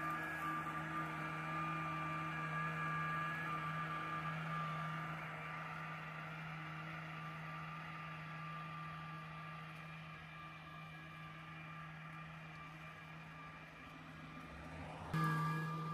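Lymow One robotic lawn mower's electric motors whirring steadily as it mows, a steady whine with a low hum under it that slowly fades as the mower moves away. Near the end it jumps suddenly louder.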